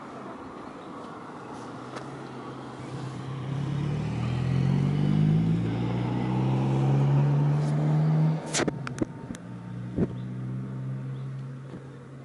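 An engine running, its low hum growing louder and rising in pitch over a few seconds, then settling into a steady hum. A few sharp clicks and knocks come about two thirds of the way through.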